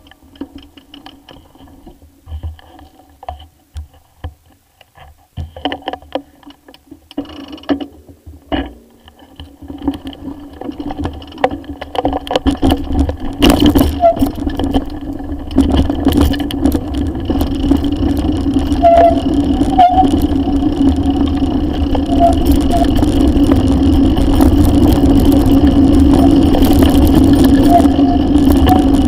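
Mountain bike riding on a dirt forest trail, picked up by an action camera mounted on the bike. The first part is fairly quiet, with scattered clicks and knocks. About halfway in, a steady rumble of tyres on the track, with frame knocks and rattles and wind on the microphone, takes over and grows louder.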